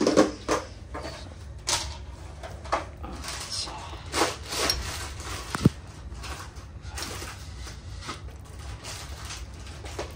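Kitchen handling noise: a string of short rustles, knocks and clatters for the first five seconds or so, with one sharp knock about five and a half seconds in, then softer handling.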